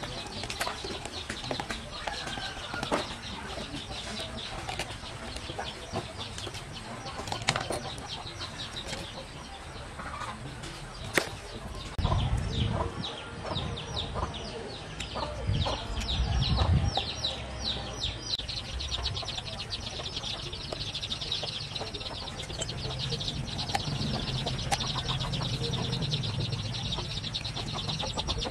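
Scattered clicks and knocks of plastic hair dryer parts being handled and taken apart by hand, with a few dull thumps in the middle, over a steady fast high-pitched chattering in the background.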